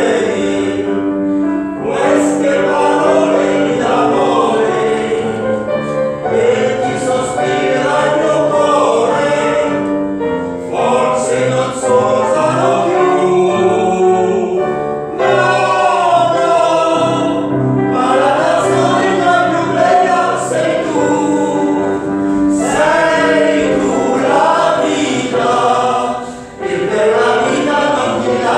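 Several voices singing a song together over held accompaniment notes.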